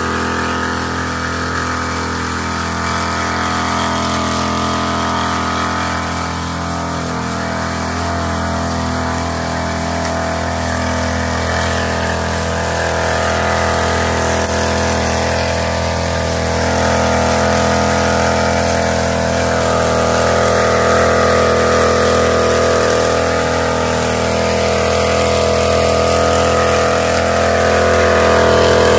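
Small engine of a knapsack power sprayer running steadily at working speed while it blows out spray mist. It grows a little louder in the second half.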